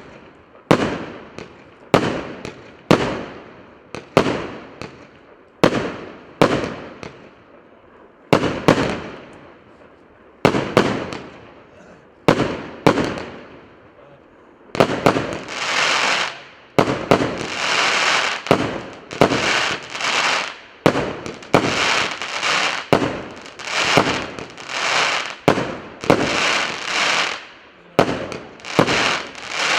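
A 100-shot, 1.2-inch consumer firework cake ('Fifth Ocean') firing a steady barrage of shots, a little over one a second. About halfway through, each shot starts trailing into roughly a second of hiss.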